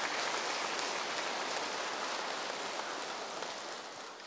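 A large seated audience applauding, the clapping slowly dying away near the end.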